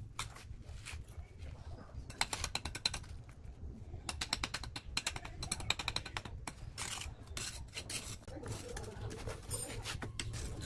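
Steel bricklaying trowel scraping and tapping against brick and wet mortar in quick rasping runs, several short bursts.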